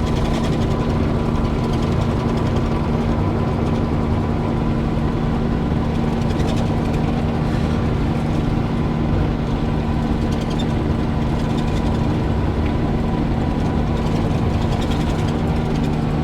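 Excavator's diesel engine running at a steady speed, a constant low hum with no change in pitch.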